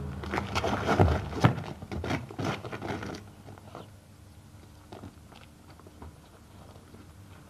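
Scuffling feet and thuds of a fistfight on a concrete floor: a busy stretch of knocks and scrapes with two sharp thumps about a second in, dying away to a few scattered footsteps after about three seconds.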